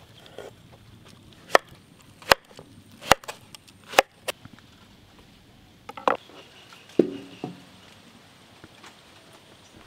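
Knife chopping on a wooden board: about six sharp chops, irregularly spaced, falling between about a second and a half and seven seconds in.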